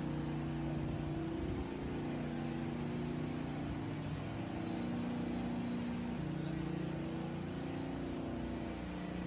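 Engine running steadily, its pitch shifting to a new level a couple of times.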